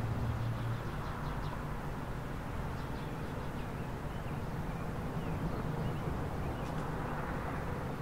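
Steady low rumble of traffic, with small birds chirping now and then.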